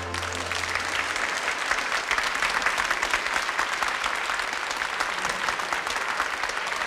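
Studio audience applauding: dense, steady clapping from a large crowd. A low held note of the preceding musical accompaniment stops just under half a second in.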